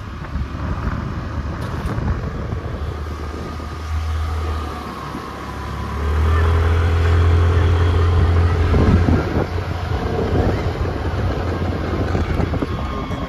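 Wind buffeting the microphone, a low rumble that swells about six seconds in and eases off after about nine seconds, over a steady outdoor noise.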